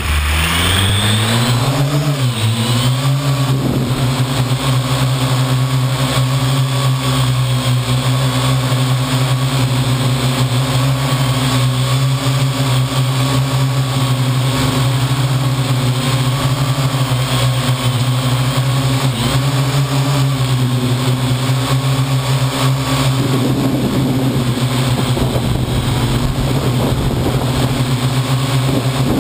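Parrot AR.Drone quadcopter's four electric motors and propellers spinning up with a rising whine over the first few seconds, then a steady hum as it takes off and flies, with a brief dip in pitch a little past the middle. Heard up close through a camera mounted on the drone.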